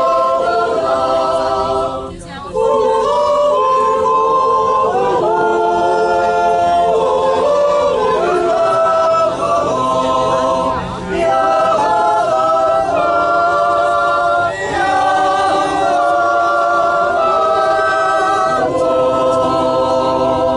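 A group of voices singing unaccompanied in harmony, long held notes sung in phrases with short breaks between them.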